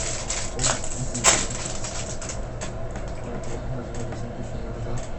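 Trading cards and a pack wrapper being handled: a quick run of crinkles and flicks, the sharpest about a second in, thinning out after about two and a half seconds, over a steady low hum.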